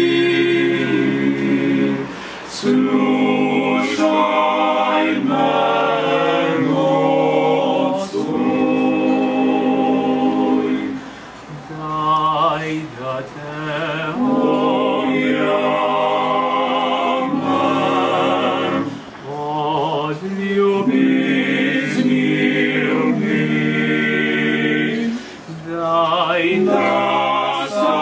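Male octet singing a cappella in close harmony: held chords in long phrases, with short breaks about every six to nine seconds.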